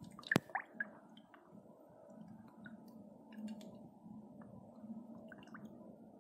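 Climbing perch stirring in shallow water in a steel bowl: faint splashing and dripping, with a sharp tap about half a second in.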